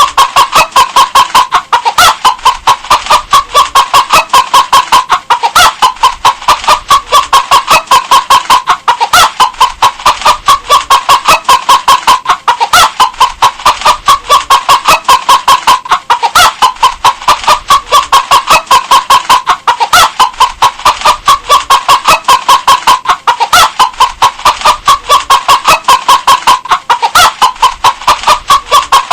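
Hen clucking in a fast, steady series of short clucks, about four a second, with the same short run of clucks coming back about every two seconds.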